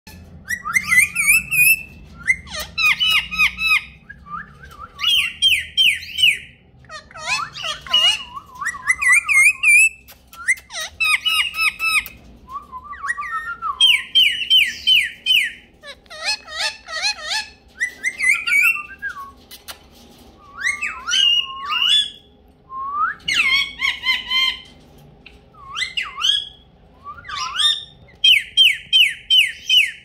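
Indian ringneck parakeet calling: bursts of rapid, short rising squawks every second or two, with a few longer gliding, whistle-like notes among them.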